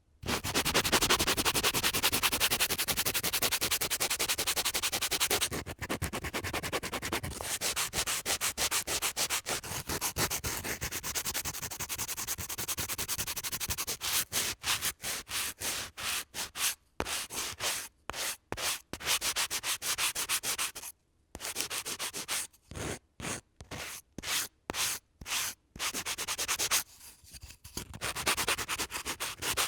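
Sandpaper rubbed back and forth on wood. The strokes run fast and continuous at first, then come as separate strokes with short gaps in the second half, with brief pauses about 21 seconds in and again near 27 seconds.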